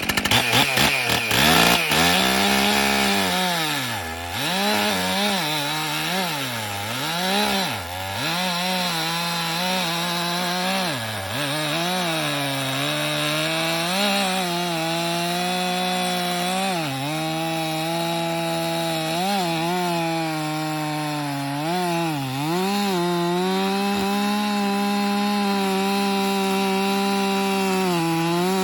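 Stihl two-stroke chainsaw at full throttle cutting through a cottonwood log. The engine pitch sags and recovers again and again as the chain loads in the wood during the first half, then holds steady and high near the end.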